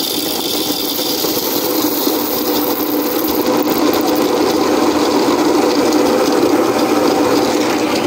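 Baratza Encore burr coffee grinder running, its motor turning the burrs as they grind coffee beans, a loud, steady whir.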